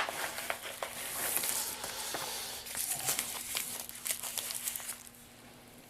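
Packaging crinkling and rustling as hands rummage through a mailed parcel, with many small clicks and taps; it dies away about five seconds in.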